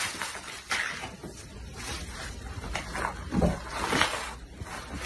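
Scuffling and rustling in straw and wood shavings as a bear cub wrestles with a toy, in irregular bursts with a few soft knocks.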